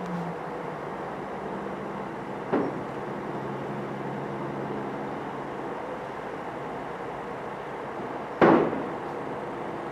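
Caterpillar bulldozer's diesel engine running steadily while pushing snow, with two sharp bangs, the louder one near the end.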